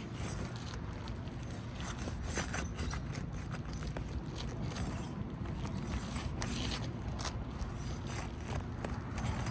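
Irregular scraping and clicking of a tool working under asphalt 3-tab shingles to pry out their staples, over a steady low rumble.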